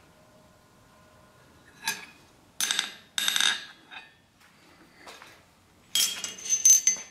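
Forged steel tools clinking against a steel anvil face as they are lifted off it, then a quick run of light taps from a small forged steel hammer on the anvil near the end, with a brief metallic ring.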